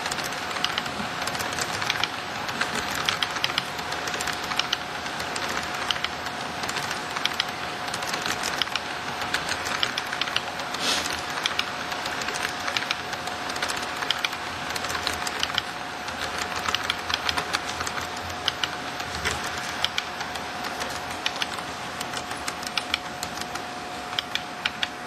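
Model train cars rolling past on the track, their wheels clicking rapidly and irregularly over the rail joints, with a steady thin whine underneath.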